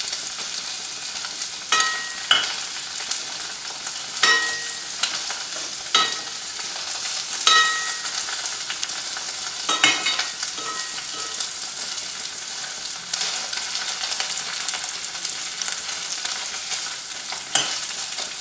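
Paneer cubes sizzling steadily as they shallow-fry in hot oil, with a metal spatula scraping and clinking against the pot several times as the cubes are turned over.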